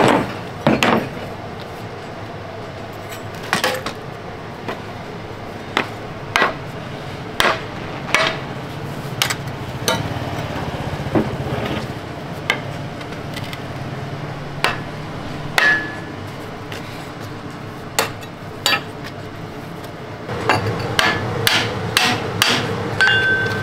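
Hand hammer blows: spaced single knocks about once a second, then a quicker run of strikes near the end, some leaving a brief metallic ring.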